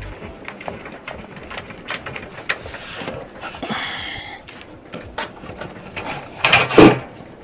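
PC case side panel being taken off: scattered small clicks and handling, a scraping slide about halfway through, then a couple of loud knocks near the end.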